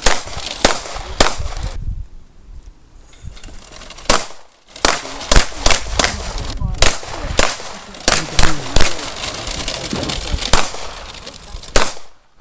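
Pistol gunfire: a long run of shots at irregular spacing, some in quick pairs and strings, with a pause of about two seconds shortly after the start.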